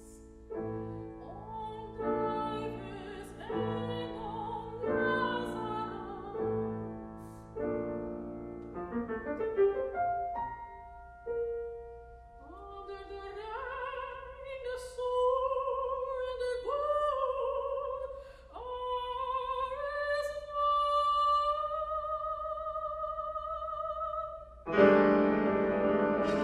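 Live classical chamber music: piano playing repeated chords, then a soprano singing long, wavering notes with vibrato over the piano. Near the end a much louder, fuller passage breaks in.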